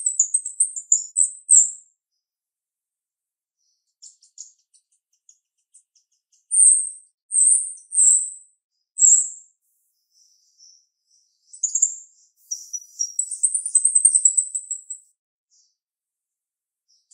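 Female jalak rio-rio, a caged starling, calling in sharp, high-pitched notes. A fast chattering run comes first, then four loud separate notes around the middle, then another long chattering run near the end.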